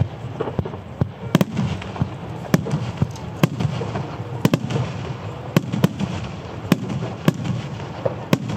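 A starmine, a rapid-fire barrage of aerial firework shells, bursting overhead: about a dozen sharp bangs, one every half second to a second, over a steady low rumble.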